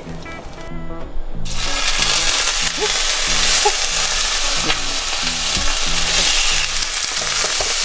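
Halved cherry tomatoes frying in hot olive oil in a frying pan, a steady sizzle that starts abruptly about a second and a half in.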